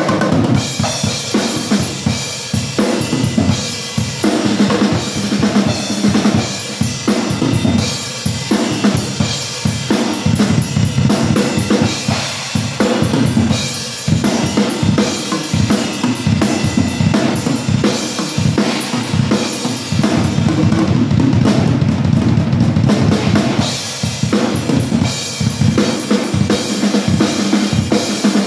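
Acoustic drum kit played on its own as the drum track of a song: steady bass drum and snare strokes under a continuous wash of cymbals, heavier in some stretches, picked up by a phone's microphone.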